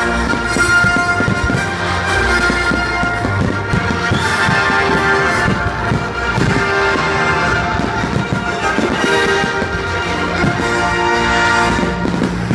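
Orchestral music with brass, over the bangs and crackle of a fireworks display.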